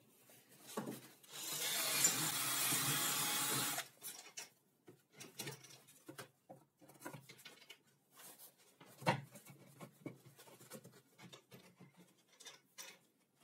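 Wood scraping on wood for about two and a half seconds as a plywood disc is rubbed across a plywood tabletop, followed by scattered light knocks and clicks of wooden parts being handled and fitted, with one sharper knock about nine seconds in.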